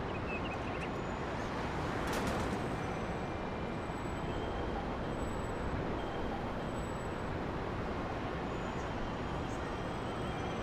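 Steady rumble of a Russian passenger train, with one sharp clank about two seconds in.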